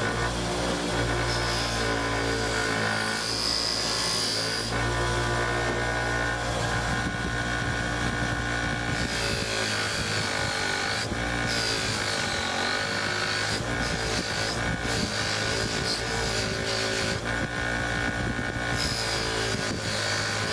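A 6-inch bench buffer runs steadily, its motor humming as a brass piece is held against the spinning cotton buffing wheel to polish it to a shine. A hiss from the wheel on the metal comes and goes, and the hum's pitch wavers slightly as the pressure changes.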